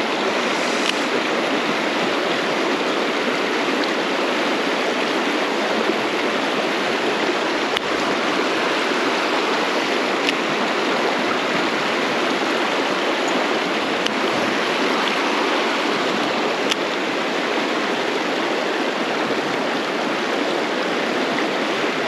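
Mountain stream rushing steadily over rocks, a constant water noise with a few faint clicks.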